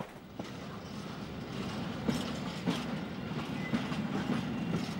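A train running on the rails: a steady rumble that slowly grows louder, with a few wheel clacks over the rail joints.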